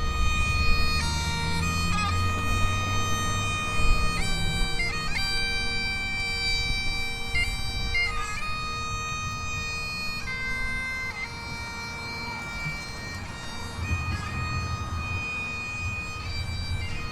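Bagpipes playing a slow melody of held notes over a steady drone, with quick grace-note flicks between the notes.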